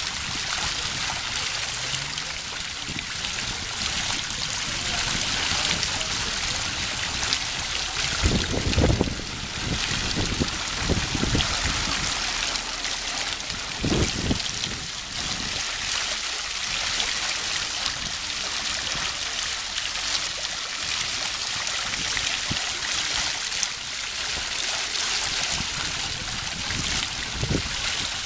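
Tiered fountain splashing: water spills steadily from the upper basin onto the lower one in an even hiss. A few brief low rumbles stand out, the loudest about nine and fourteen seconds in.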